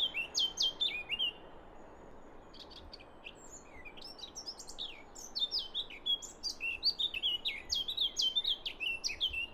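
Several small songbirds chirping and calling in quick, high notes that mostly sweep downward, over a faint steady hiss. The calls thin out after about a second and a half and build up again from about four seconds in.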